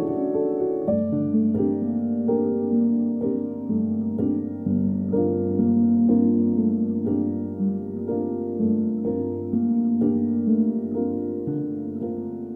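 Gentle instrumental music: a slow line of single ringing notes over a held low note that comes in about a second in.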